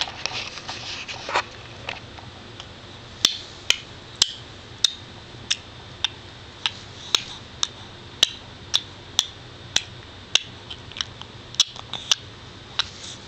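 Seven-month-old baby making mouth clicks: sharp single clicks, roughly two a second, starting a few seconds in after a short breathy noise.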